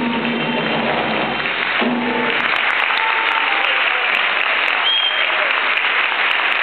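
Band music stops about two and a half seconds in, and the audience breaks into sustained applause.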